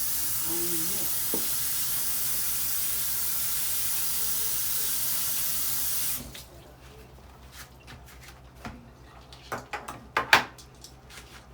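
Kitchen sink tap running steadily for about six seconds as a can is rinsed under it, then shutting off suddenly. A few clicks and knocks follow, the sharpest about ten seconds in.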